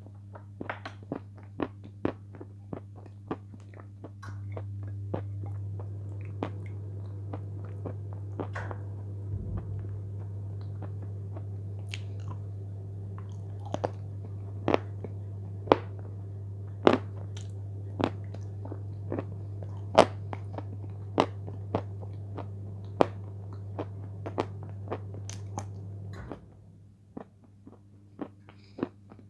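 Close-miked wet mouth sounds of someone eating cream off her fingers: sharp, sticky lip smacks and clicks, about one or two a second.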